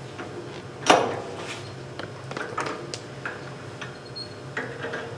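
A wooden bowl blank knocks once against the metal four-jaw lathe chuck as it is seated on its tenon, followed by light clicks and taps from the chuck key as the jaws are tightened.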